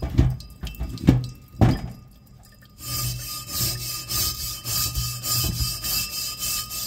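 A few dull knocks, then a small wire brush scrubbing back and forth in quick, even strokes along a rusty Jeep tail shaft tube under running tap water, scouring off rust loosened by an overnight citric acid soak.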